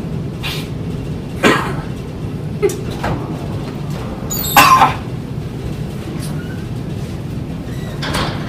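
A man coughing several times at intervals, with a harder cough about halfway through, over a steady low hum.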